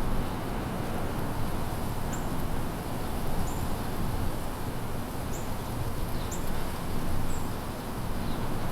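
A small bird giving short, thin, high call notes, about five of them roughly a second apart, over a steady low rumble.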